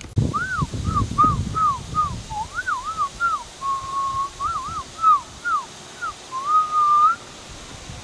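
A man whistling imitation bird calls through cupped hands: a string of short swooping whistles, with one held steady note about halfway through and a wavering held note near the end.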